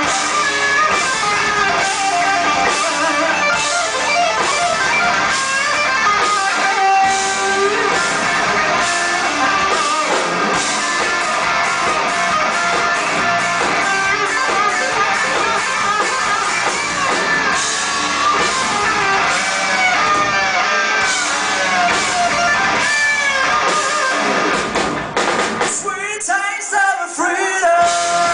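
Live heavy metal band playing: distorted electric guitars, bass and drum kit, recorded from the audience. Near the end the bass and drums drop out for about two seconds, then come back in.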